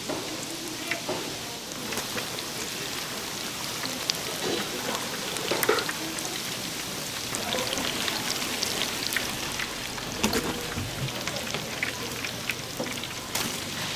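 Hot oil crackling as food deep-fries: a dense, steady patter of small pops with a few louder ones.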